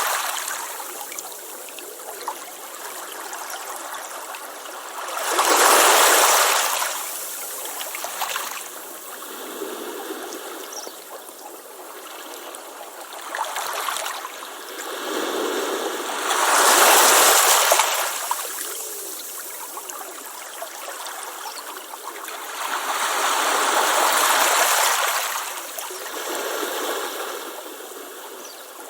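Ocean waves washing onto a beach: a steady hiss of surf with three louder waves breaking, swelling and fading about five seconds in, midway and near the end.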